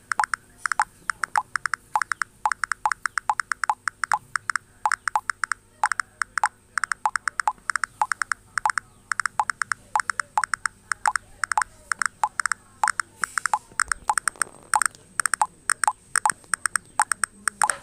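A rapid, uneven stream of short electronic blips from a phone, several a second. They are the keyboard tap sounds and WhatsApp message-sent sounds as an auto-clicker app types and sends the same short message again and again.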